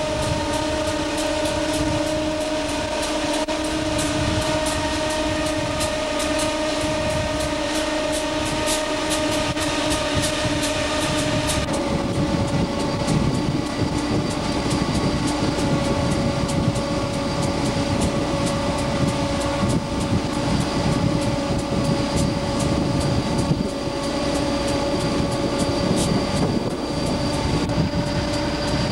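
EMD GF6C electric locomotive running: a steady whine of several held tones over the noise of wheels on rail, with scattered clicks. About twelve seconds in, the whine steps down slightly in pitch and the low rumble of the wheels grows louder.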